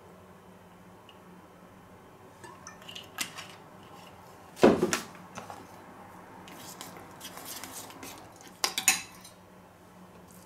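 Metal teaspoon clinking and scraping against a small stainless steel bowl while stirring a paprika-paste and olive-oil marinade. There is a single loud knock about halfway through and a sharp clink near the end.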